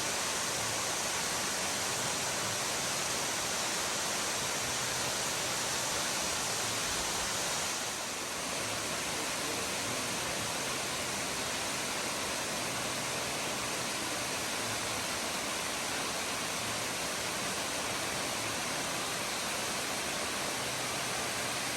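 Glen Falls waterfall rushing: a steady, even roar of falling water.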